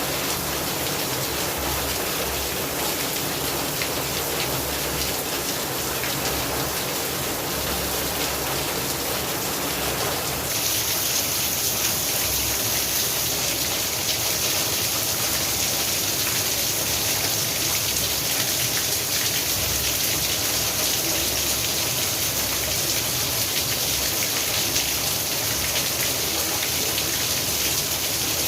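Steady rainfall, a continuous patter of many drops. About ten seconds in it turns slightly louder and hissier, as if the rain grows heavier.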